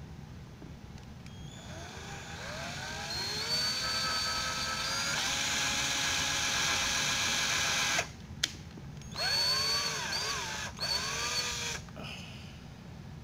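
Power drill/driver driving a screw through a metal corner bracket into wood: the motor whine rises in pitch as it spins up, runs steadily for a few seconds and stops suddenly, then comes two shorter bursts with the pitch dipping and rising as the screw is seated.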